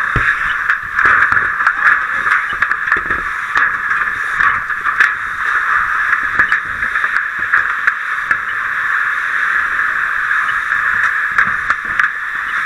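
A steady, loud hissing rush, with scattered faint clicks and knocks.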